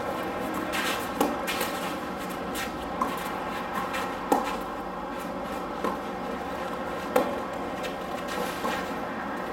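Tennis rally: sharp pocks of rackets striking the ball about every one and a half seconds, with fainter knocks of the ball bouncing and shoes on the court between the hits.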